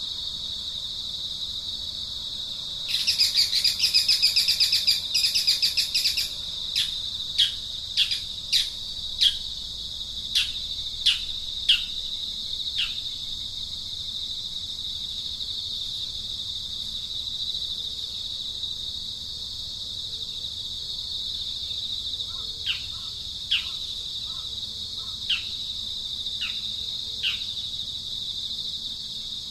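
A steady high insect drone, with birds calling over it. First comes a loud, rapid chattering call lasting about three seconds, then a run of short, downward-sliding whistled notes about one a second, and a few more of them later on.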